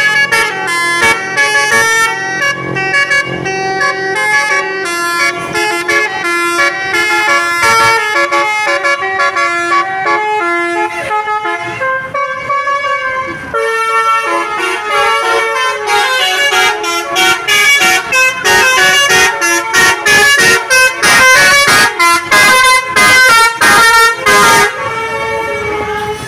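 Bus telolet horn of the Basuri type, a multi-trumpet air horn playing a tune in stepped tones. In the second half it plays a string of quick, loud, short toots, which stop abruptly shortly before the end.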